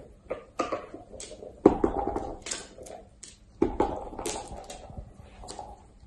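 A dachshund playing with a toy on a laminate floor: two loud knocks about two seconds apart, each followed by a short clatter, among lighter clicks and scuffs.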